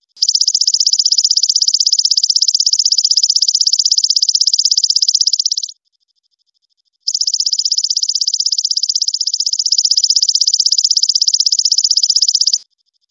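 Belalang emas katydid singing: two long, rapid buzzing trills of about five and a half seconds each, separated by a pause of over a second. A much fainter steady ticking carries on in the gap.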